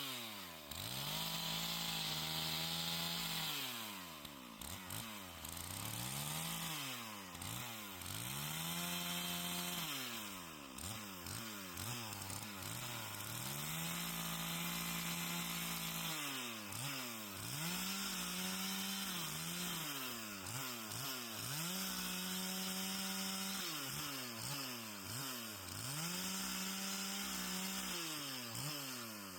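Stihl two-stroke chainsaw bucking fallen trees into firewood. The engine revs up to full throttle and holds there for a second or a few seconds, then drops back toward idle, about six times over.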